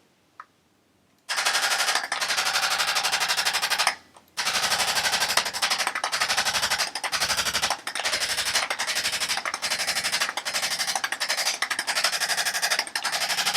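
A motorized percussion massage tool runs with a rapid, steady hammering. It starts about a second in, stops briefly near four seconds, then runs on, the low thuds rising and falling as it presses into the body.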